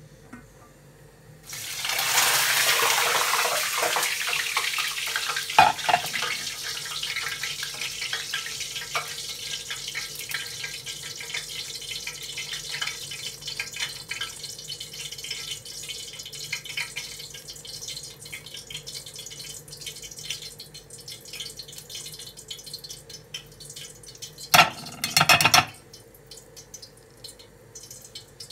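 A rushing hiss like running water starts suddenly a second and a half in and slowly fades, scattered with small clicks and clinks. A short loud burst of the same hiss comes near the end.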